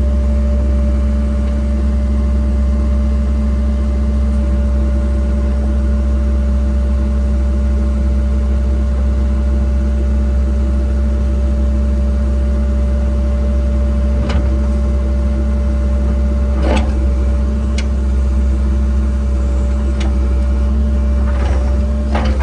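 Cat 306 excavator's diesel engine running steadily, with a few sharp knocks and clanks in the last third.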